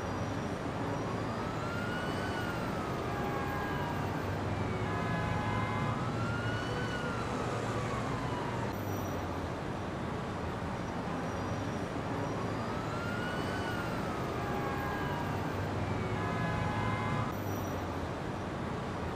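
A distant siren wailing, rising and then falling in pitch in slow sweeps of about three seconds each, over a steady low rumble of traffic.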